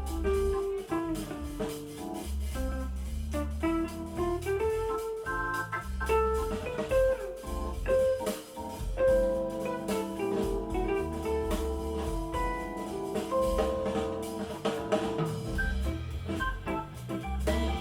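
Recorded music with organ, guitar, bass and drums playing through Edifier S2000 MkIII bookshelf speakers, picked up by a camera's built-in microphone in the room.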